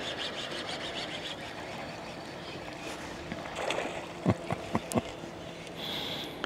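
Water sloshing, with four quick sharp knocks about four to five seconds in.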